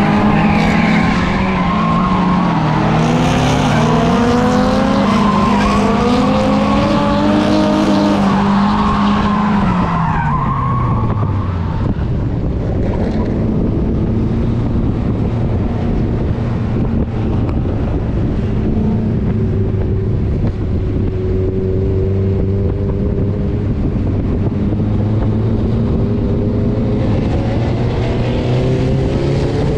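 Mazda Miata's engine revving hard and varying in pitch during a drift run, with tyre squeal. About ten seconds in, it winds down to a steady low idle, then picks up again near the end. The car has a misfire on cylinder 4.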